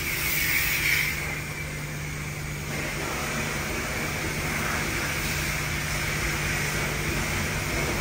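Car wash equipment running: a steady low mechanical hum under an even hiss of spraying.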